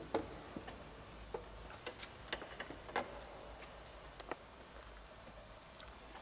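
Scattered, irregular clicks and light taps, about a dozen, over a faint hiss; the loudest come just after the start and about three seconds in.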